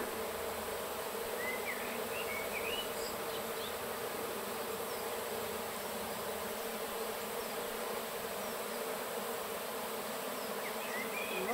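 A mass of honeybees buzzing in a steady, unbroken hum: a colony disturbed while its comb is lifted and the bees are moved into a hive box.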